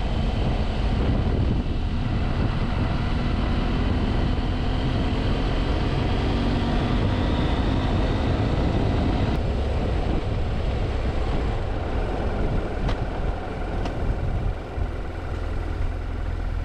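BMW F700GS parallel-twin engine running under way, mixed with wind and road noise. It eases off near the end as the bike slows, leaving a steadier low engine hum.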